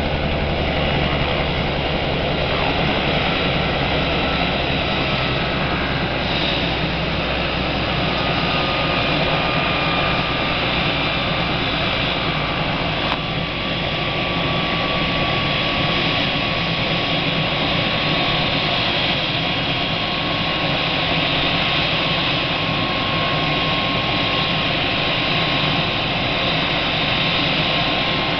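Small turbine helicopter running on the ground at idle with its rotor turning. It makes a steady, even engine and rotor noise with a thin whine on top that drifts slightly lower.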